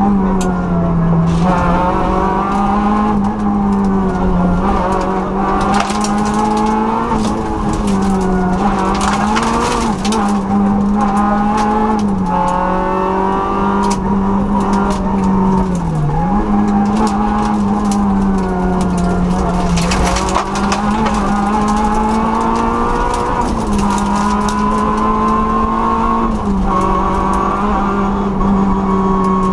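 Peugeot 106 N2 rally car's engine heard from inside the cabin, held at high revs on a special stage and dipping briefly for gear changes several times. Bursts of rushing road noise come and go over it.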